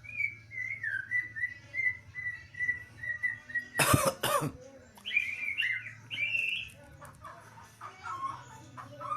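Caged songbird singing: a run of warbled, whistled notes, broken about four seconds in by two loud, harsh rasps, then more rising and falling whistles.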